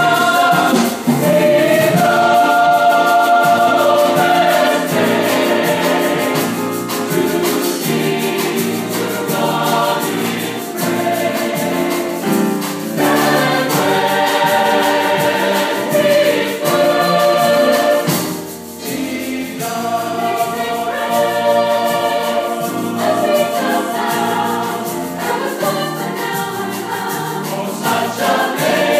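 Mixed choir of men and women singing a gospel song, with held notes and a brief dip between phrases about two-thirds of the way through.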